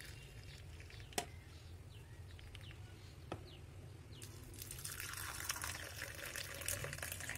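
Hot tea poured from an aluminium saucepan into glass mugs: a faint trickling pour that grows louder a little past halfway, as the next mug fills. Two faint clicks come in the first half.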